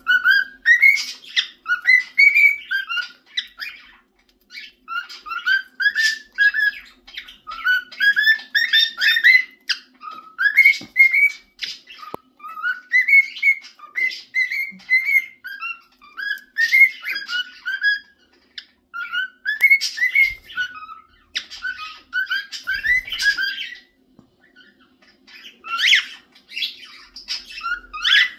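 Cockatiel whistling a tune, repeating short melodic phrases of stepping notes over and over with brief pauses between them.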